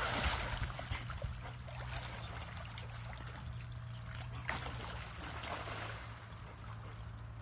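Splashing and sloshing of river water as a dog swims after a duck, loudest at the start and easing off a little, with a steady low hum underneath.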